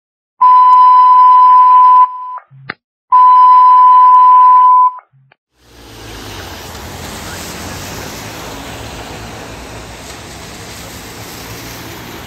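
Two long, loud electronic beeps at one steady pitch, each just under two seconds, with about a second between them, like an alert tone. About six seconds in, a steady outdoor hiss with a low rumble takes over, from a wet street and a fire engine's diesel engine idling.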